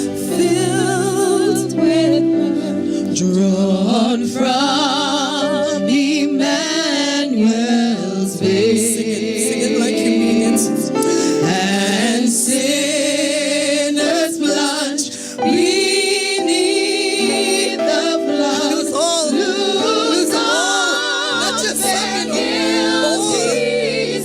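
Gospel worship music: voices singing with vibrato over sustained instrumental chords.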